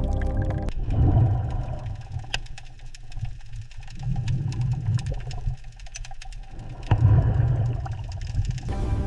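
Underwater ambience: deep rumbling swells that rise and fall three times, with scattered faint clicks, after background music drops out about a second in and before it returns near the end.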